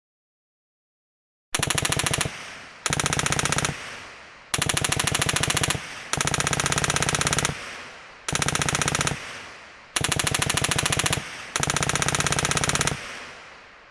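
General purpose machine gun firing seven short bursts of rapid automatic fire, starting about a second and a half in. Each burst is followed by a ringing echo, and a long echo fades out after the last one.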